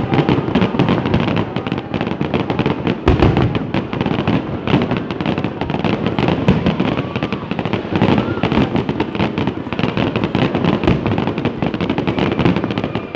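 Fireworks display: a dense, unbroken barrage of exploding shells and crackling bursts.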